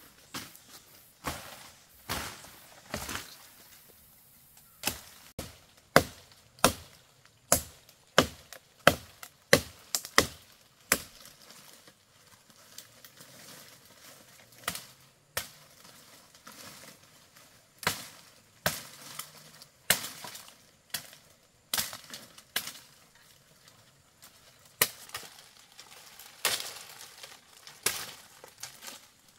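Repeated chopping strokes of a blade into wood, irregular, sometimes close together at about two a second and sometimes with pauses of a few seconds.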